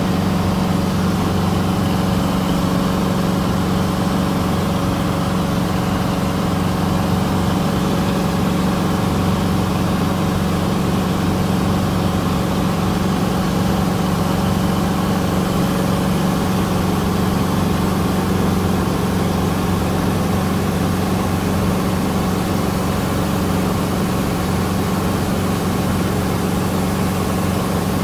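Cessna 150's Continental O-200 four-cylinder engine and propeller droning steadily in cruise flight, heard from inside the cabin as a loud, even low hum with airflow noise over it.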